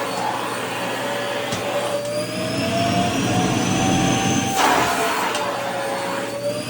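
Vacuum cleaner running, its motor whine wavering and slowly shifting in pitch over a steady rush of air. A louder surge of air comes about four and a half seconds in.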